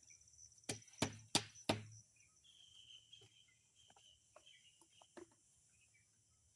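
Four sharp knocks in quick succession about a second in, over steady high-pitched insect chirring, with a few fainter ticks later on.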